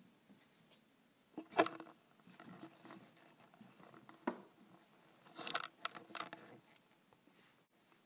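Close handling noise of a USB cable and small camera: bursts of rattling and scraping, with one sharp click about four seconds in as the cable's plug is pushed into the TV's port, then a few more rattles and clicks.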